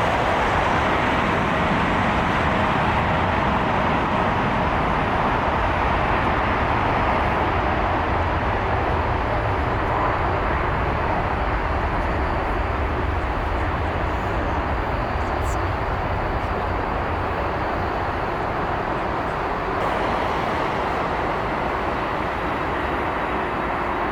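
Boeing 787-9 jet engines at takeoff thrust: a steady, loud roar with a deep rumble underneath, easing slightly over the stretch.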